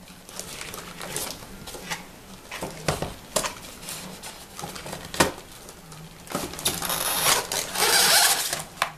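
A diecast metal crane model being handled and lifted from its packaging: sharp clicks and knocks of metal parts, the strongest about three and five seconds in, then a long scraping rustle of the styrofoam tray and plastic wrap near the end.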